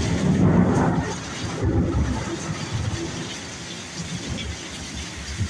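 Heavy rain hissing steadily while a loud, low thunder rumble breaks in at the start and keeps rolling unevenly for several seconds.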